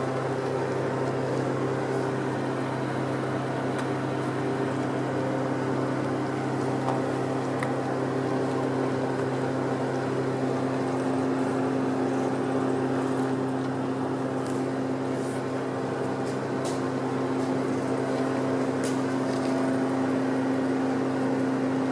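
A steady mechanical drone at an even pitch, with a few faint clicks in the second half.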